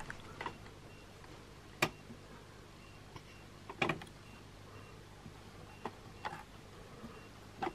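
Scattered light clicks and taps of a plastic toy being handled while a sticker is pressed on. There are about six, the sharpest about two and four seconds in, over a faint low hum.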